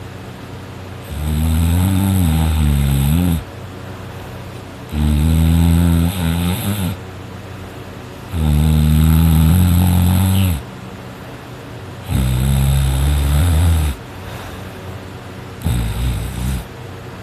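A sleeping person snoring loudly: five long, low snores, each about two seconds, coming every three to four seconds; the last one is shorter.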